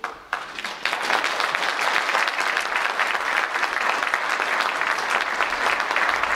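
Church congregation applauding, the clapping starting suddenly, swelling over the first second and then holding steady.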